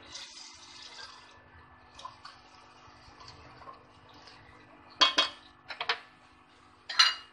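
Spoon stirring chicken and wet tomato paste in a metal pot, with a soft wet hiss in the first second. About five, six and seven seconds in, the spoon knocks against the pot in loud clattering clusters.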